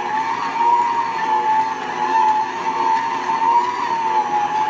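Hamilton Beach tilt-head stand mixer's 300-watt motor running, a steady whine that wavers slightly in pitch as the beater works through a stiff peanut-butter dough.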